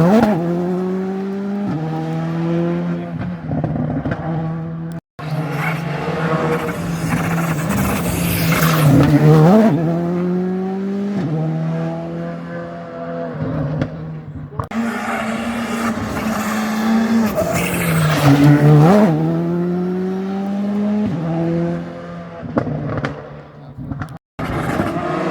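Rally cars driving hard on a closed stage, one clip after another: engines revving and changing gear, the pitch sweeping up and falling away as a car goes by, twice near the middle and again near the end.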